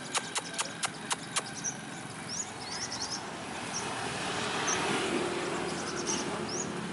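A run of sharp ticks, about four a second, for the first second and a half, then scattered short high chirps from small birds. Road traffic noise swells toward the end.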